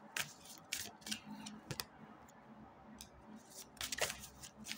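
Tarot cards being handled: a faint, irregular scatter of short crisp snaps and rustles of card stock.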